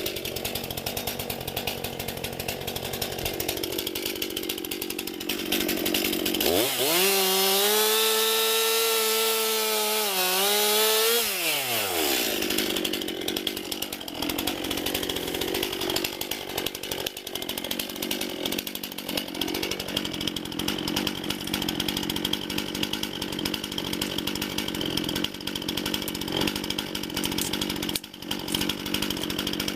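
Chainsaw cutting into a fallen tree trunk, the engine running throughout. About six seconds in it revs up to a high, steady pitch for about five seconds, then drops back.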